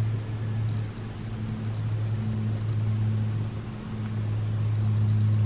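A steady low hum with a fainter higher tone above it, dipping briefly a couple of times.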